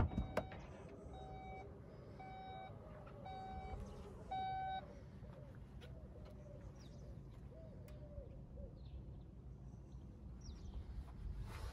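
A sharp click, then four short electronic beeps, a little under a second apart, from the Cupra Formentor as its tailgate is released and opens. The last beep is the loudest. Faint bird calls are heard in the background.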